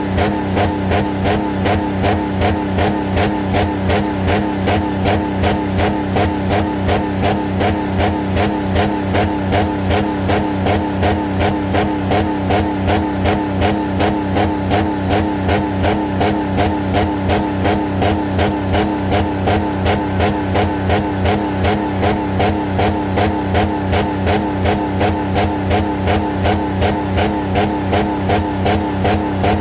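Jeep Commander engine running with water in its oil pan, a steady run with an even pulse about two to three times a second.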